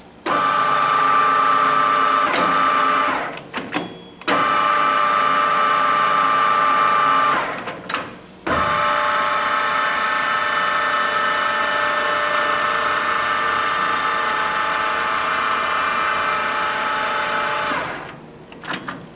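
Samstar 40 x 160 engine lathe running under power from its apron controls: a steady machine whine with a strong high tone. It is started and stopped three times, two runs of about three seconds and then one of about nine seconds, each reaching full pitch at once and dying away within a second.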